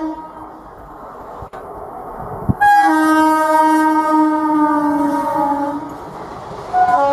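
A WAP-4 electric locomotive sounding its horn as it passes: one long blast of about three seconds that slides up at the start and sags slightly in pitch, then a second blast beginning near the end. Before the horn there is a quieter rumble of the approaching train.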